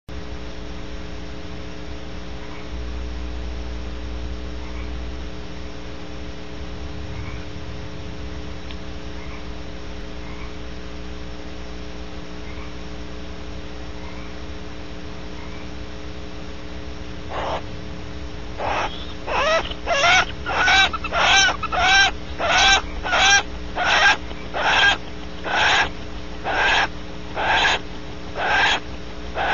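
Female barn owl giving a rapid series of rasping wheeze calls, about two a second, after mating; they begin a little past halfway through. Before them only a steady electrical hum.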